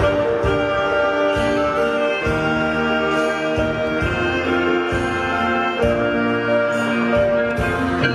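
Luk thung band playing a live instrumental passage led by brass horns over a regular drum beat.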